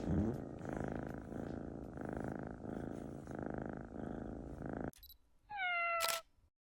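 Sleeping Scottish Fold kitten purring, a rough pulsing sound about twice a second that breaks off suddenly just before five seconds in. Near the end comes a short tone falling in pitch, with a click.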